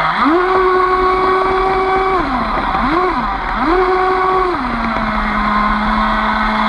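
Aquacraft 2030 brushless motor of a radio-controlled Miss Geico 29 boat, whining in pitch with the throttle as heard from on board. The whine climbs quickly as the throttle opens, holds high, drops, blips up and down once, climbs again, then settles to a lower steady whine for the last couple of seconds. Water rushes underneath throughout.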